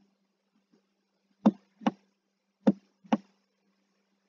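Sharp knocks from handwriting strokes being entered into a computer drawing tool: two pairs of clicks, each pair about half a second apart, over a faint steady electrical hum.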